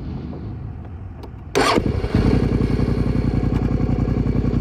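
Motorcycle engine starting: a sudden loud burst about a second and a half in as it fires, then settling into a steady, evenly pulsing idle.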